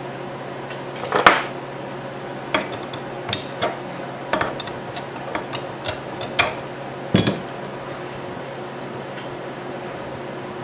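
Steel parts of a quick-change lathe tool post clinking and knocking as it is taken apart by hand, with a steel rod worked in its centre bore. About a dozen sharp metallic clicks come irregularly through the first seven seconds, the loudest about a second in and again at about seven seconds.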